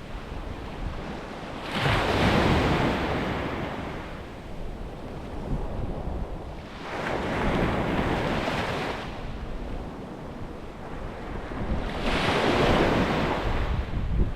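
Sea waves breaking on a beach, three waves surging in and washing back about five seconds apart, over a steady low rumble of wind on the microphone.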